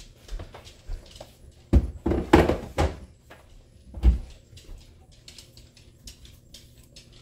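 Knocks and thuds of a plastic flour container being put away in a kitchen, a cluster of them around two to three seconds in and another thud about four seconds in.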